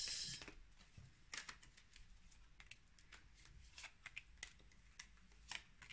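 Oracle cards being handled: a brief shuffle right at the start, then faint scattered clicks and taps as single cards are dealt off the deck and laid on a cloth-covered table.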